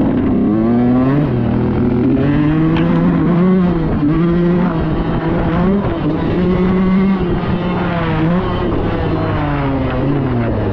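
2005 Suzuki RM125's two-stroke single-cylinder dirt bike engine under way on a trail, revving up and down as the throttle is worked, its pitch climbing and dropping several times.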